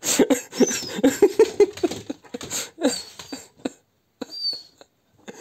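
Dachshund whining and yipping in quick short bursts, dying away about three and a half seconds in.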